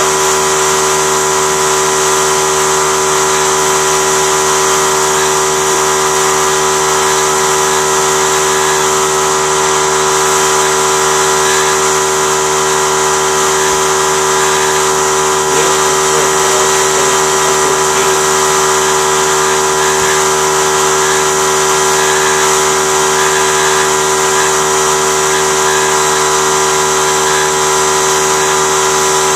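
A machine running steadily, a constant hum of several tones with hiss above it, unchanging throughout.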